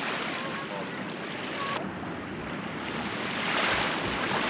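Ocean waves washing onto the shore, a steady rush of surf that swells louder near the end.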